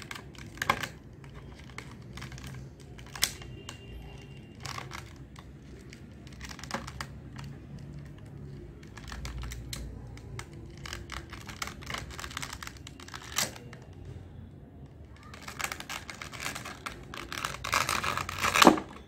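Clear plastic blister tray being flexed and worked by hand to free a metal action figure: scattered clicks and crinkles, then a dense run of crackling plastic in the last few seconds, loudest just before it stops as the figure comes free.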